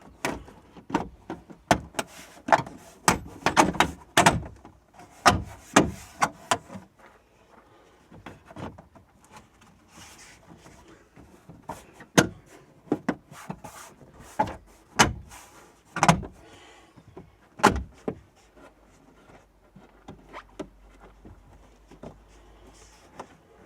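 Plastic tailgate trim panel being handled and pressed back into place, its clips snapping home: a quick run of sharp clicks and knocks over the first several seconds, then a few louder single knocks and snaps later on.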